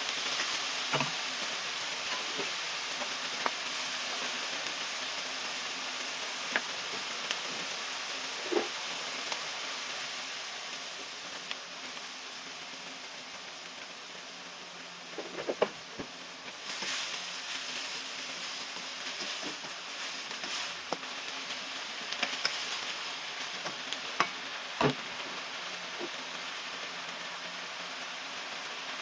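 Ground pork sizzling as it sautés in a pan: a steady frying hiss, with a few sharp knocks of a utensil against the pan as it is stirred.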